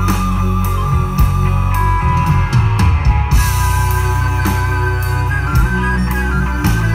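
Live folk-rock band playing amplified through a PA: bass guitar and drums under a wavering melody line.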